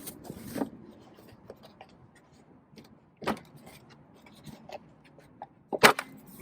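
Scattered clicks and knocks of hard parts being handled and set down at a car wheel, with a quick, loud double knock near the end.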